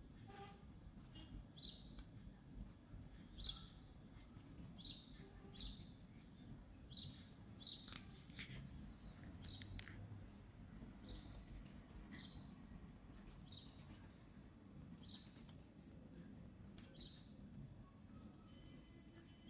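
A bird chirping over and over, one short high chirp falling in pitch about every second and a half, over a low steady hum, with a few sharp clicks near the middle.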